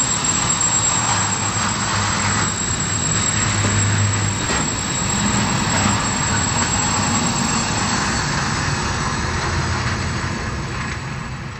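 Freight train of loaded container wagons rolling past close by: a steady rumble and rattle of wheels on the rails, with a low hum underneath. The sound begins to fade out near the end.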